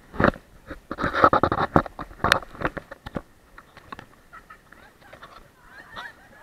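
Short bursts of shrill voices and laughter mixed with water splashing and sharp knocks against the action camera, busiest in the first three seconds and thinning out after.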